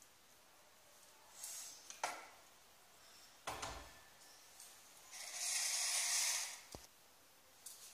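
Kitchen handling sounds on a stone countertop: a click about two seconds in, a dull thump about a second and a half later, then a hissing rustle lasting about a second and a half and a short soft knock.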